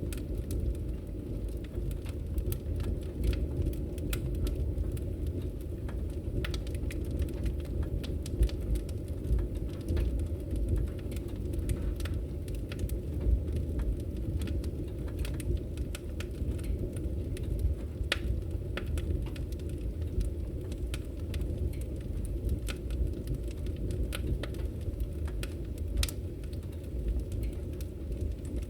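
Firewood burning: a steady low rumble of the flames with frequent sharp, irregular crackles and pops.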